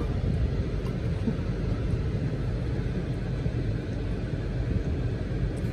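Car idling, heard from inside the cabin as a steady low rumble.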